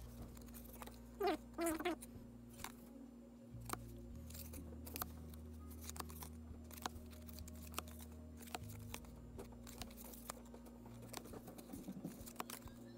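Cardboard baseball cards being leafed through by hand, one card slid across the next at a time, giving irregular light ticks and snaps of card edges.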